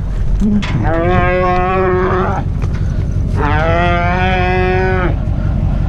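Roped dairy heifer bawling twice, two long, steady moos of about a second and a half each, over a steady low hum.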